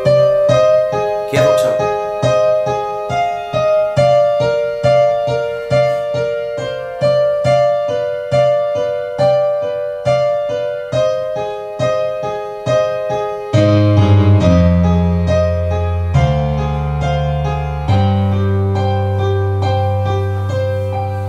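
Piano music: a melody of separate notes, about two to three a second in the middle register. About two-thirds of the way through, deep, long-held bass notes join in underneath.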